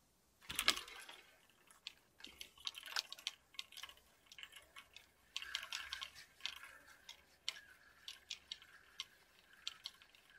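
Fishing reel being wound in, giving irregular clicking and ticking, with a handling knock about half a second in and a faint steady whine from about halfway. The tackle is being pulled back out of waterweed.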